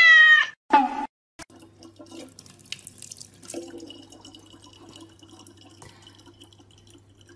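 A cat meows once, a loud call that rises and then falls. After a short gap a thin stream of water runs steadily from a tap into a plastic bottle, faint over a low steady hum.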